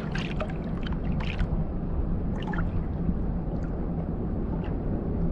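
Water lapping and gurgling against a plastic fishing kayak's hull, with a steady low rush of wind and sea, and a few short light ticks and splashes in the first half.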